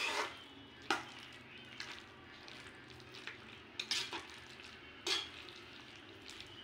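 Metal slotted spoon stirring and scraping fried mushrooms through a thick sauce in a metal pan, a handful of separate scrapes about a second apart. A faint steady sizzle runs underneath on a low flame.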